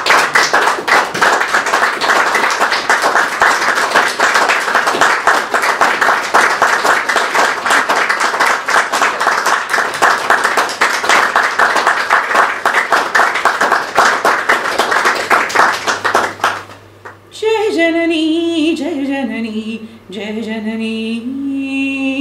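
A small audience applauding for about sixteen seconds. The applause dies away and a woman's voice begins singing a slow, gliding melody unaccompanied.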